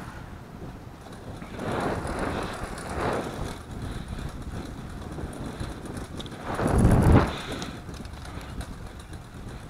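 Wind and road noise rushing over the microphone while riding a road bike, swelling three times, most strongly about seven seconds in.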